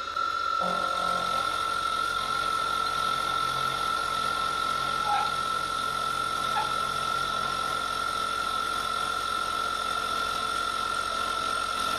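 Milling machine spindle running with an end mill cutting a metal plate: a steady high-pitched whine over the grinding noise of the cut.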